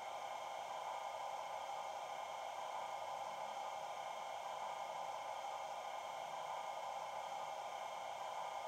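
Sound decoder in a Bachmann OO-gauge Class 37 model, playing a recorded Class 37 diesel sound through its small speakers: a steady, unchanging whir while the model stands still.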